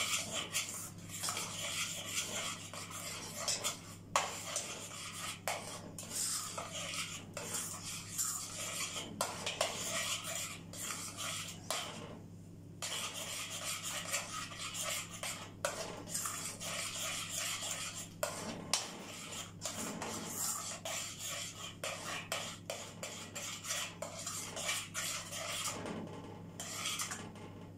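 A spoon stirring and scraping around a stainless steel pot of thickening milk-and-starch cream, with many small clinks against the pot, pausing briefly about twelve seconds in and again near the end. The stirring is kept up continuously so the cream does not form lumps as it thickens.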